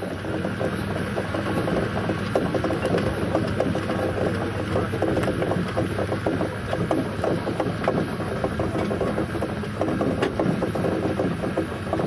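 Steam ploughing engine's cable winding drum and its gearing clattering steadily, a dense fast metallic rattling, as the steel ploughing cable runs on the drum.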